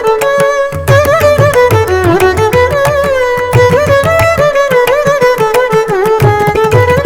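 Carnatic music: a mridangam playing a running rhythm of deep bass strokes and sharp ringing strokes, under a melody of sliding, bending notes on another instrument.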